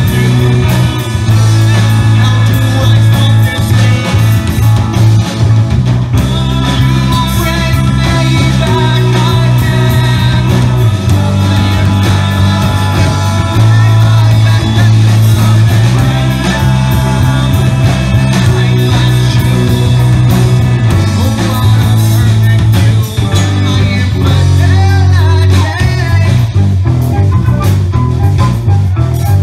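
Live progressive rock band playing loudly, with a lead singer over electric guitar, bass guitar and drum kit, and a strong low bass line.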